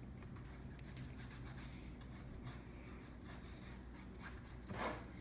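Paintbrush bristles scrubbing acrylic paint onto a stretched canvas in short, repeated scratchy strokes, over a faint steady low hum. A brief louder rasp comes near the end.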